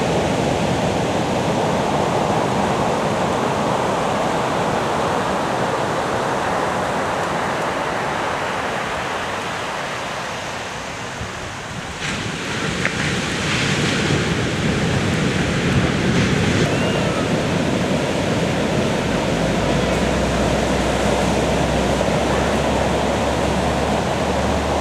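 Ocean surf breaking and washing in, a continuous rush of waves. It eases a little about ten seconds in, comes back suddenly about halfway, and a low steady rumble joins about nineteen seconds in.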